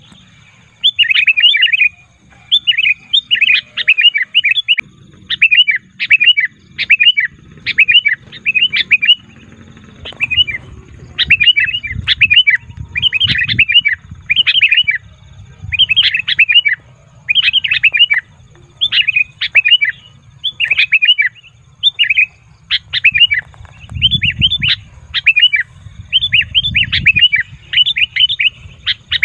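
Sooty-headed bulbul giving loud, rapid chattering calls in short bursts, repeating about once a second: the noisy, excited calling used to lure wild bulbuls.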